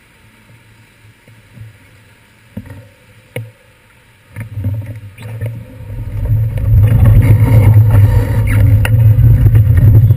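Muffled, fairly quiet street sound with a few short knocks. From about four seconds in it grows into a loud, steady low rumble with crackle: wind and road vibration on a handlebar-mounted camera in its waterproof housing as the bicycle rides across wet pavement.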